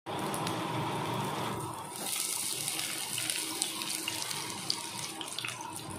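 Raw jackfruit pieces sizzling as they fry in hot oil in a kadhai, a steady hiss with small crackles that turns brighter about two seconds in.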